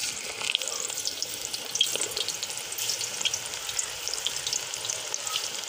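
Gram-flour pakora batter being dropped by hand into hot oil in an aluminium karahi, the oil sizzling and crackling with many small pops. The sizzle starts sharply as the first batter goes in.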